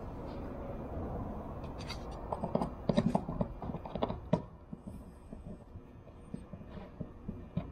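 Hands handling an instrument panel and its small hardware: a flurry of clicks, taps and scraping about two to four seconds in, then a few scattered light clicks.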